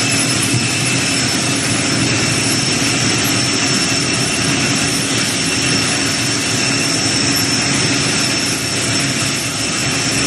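Jet engines of Air Force One running steadily, a high whine over a loud, even rushing noise.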